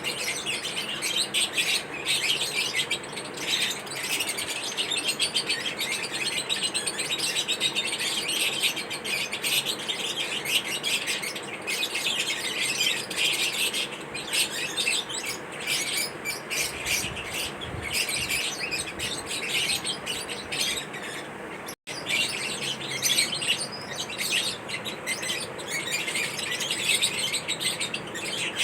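A group of pet lovebirds chirping continuously: a dense chatter of short, high chirps that breaks off for an instant about two-thirds of the way through.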